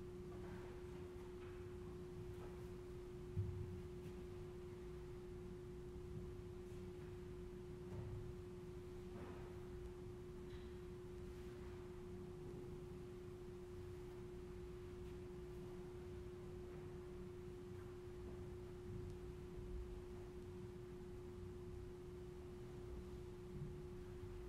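A steady single-pitch hum, with a few soft knocks and clinks as altar vessels are handled. The loudest knock comes about three and a half seconds in.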